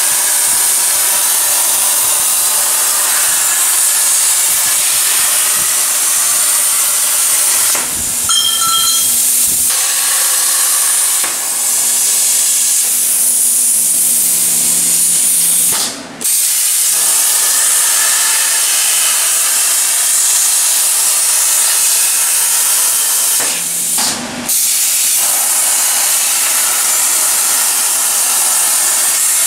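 Hypertherm Powermax1250 plasma torch on a CNC plasma table cutting stainless steel sheet: a loud, steady hiss of the arc and its air jet, with a few brief breaks.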